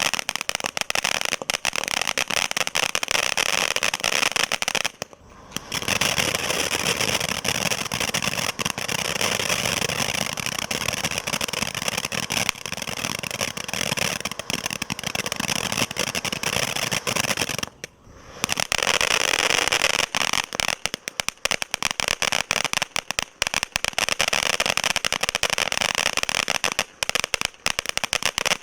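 Garden firework fountains spraying, a steady hiss thick with fast crackling. It drops out briefly twice, about five seconds in and again near eighteen seconds.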